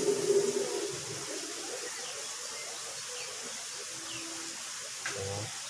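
Outdoor garden background: a steady hiss with a few faint, short high chirps from small birds. A voice trails off in the first second and starts again near the end.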